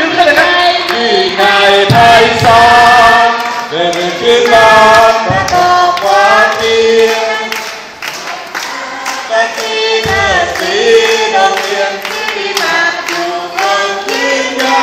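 A crowd singing a Thai song together in a choir-like mass of voices, with hands clapping along in time.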